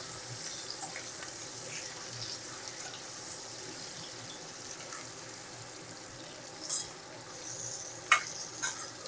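Boiled raw jackfruit pieces frying in hot mustard oil in a kadai, with a steady sizzle. A few sharp clinks come near the end.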